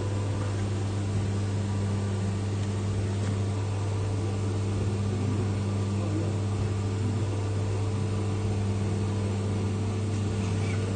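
CNC milling machine running with a steady low hum, machining a brass gear knob.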